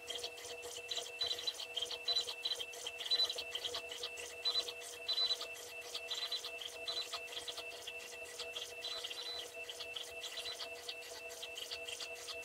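Stepper motors of a homemade CNC router driving the gantry and pen in short moves. A high-pitched stepping whine breaks into rapid pulses several times a second, switching pitch between moves, with ticks and a steady lower hum underneath.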